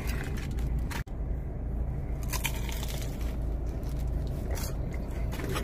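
Close-up chewing and biting sounds of someone eating an icing-dipped cinnamon knot, with a few wet, sticky mouth clicks, over a steady low hum.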